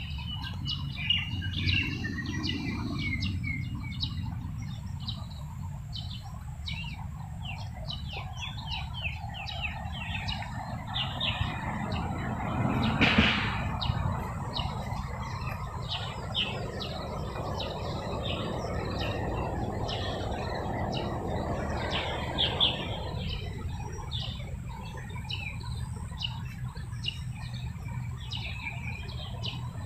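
Small birds chirping busily, many quick chirps all through, over a steady low rumble of traffic. A louder wash of traffic noise swells about 11 seconds in, peaks near 13 seconds, and fades out around 23 seconds.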